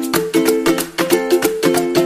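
Background music: an upbeat plucked-string tune strummed in a steady quick rhythm.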